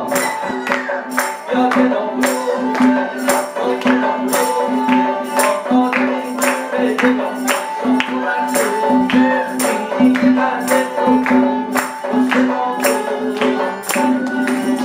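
Live Persian traditional ensemble music: jingled frame drums and a hand drum beat a steady rhythm under a bowed kamancheh and a plucked long-necked lute, over a held low note.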